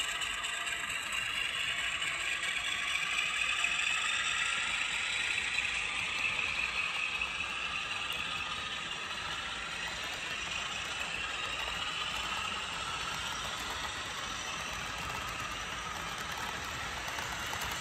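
Model freight cars rolling past on the track, their wheels clicking and rattling steadily over the rail joints.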